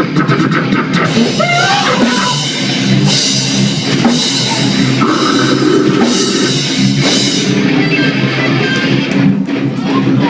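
Loud rock music with a drum kit, crashing cymbals and electric guitar.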